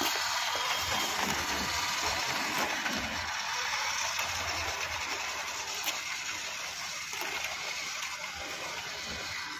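WPL D12 1/10-scale RC truck driving on concrete: its brushed electric motor and drivetrain run with a steady hiss of the tyres, getting quieter toward the end as it drives away.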